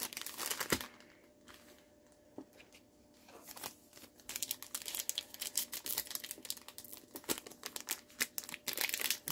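Panini Select basketball card packaging being opened by hand, with crinkly wrapper and tearing sounds. It goes quiet about a second in and picks up again as dense crinkling from about four seconds on.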